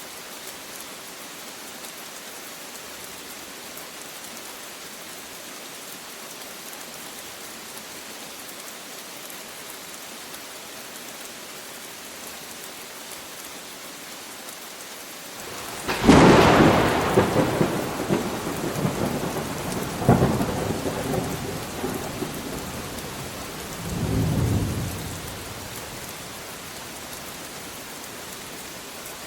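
Steady rain falling, with a sudden loud thunderclap about halfway through that rumbles on in two further rolls before fading back to the rain.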